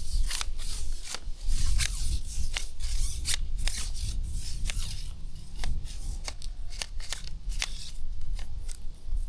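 Irregular sharp crackling clicks, several a second, over a steady low rumble.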